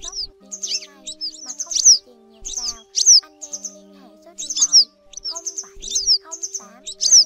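Yellow wagtail calls: sharp, high, down-slurred notes repeated in quick clusters every second or so, from a bird-trapping lure recording. They are laid over background music of steady held notes.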